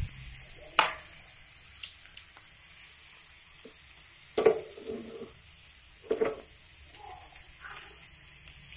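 Macaroni and meat topping sizzling in a frying pan with a little water. A spatula scrapes and knocks against the pan a few times as it is stirred, loudest about halfway through.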